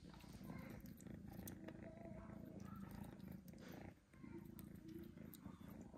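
Small kitten purring while being hand-fed, a low steady purr that breaks off briefly about four seconds in and then resumes.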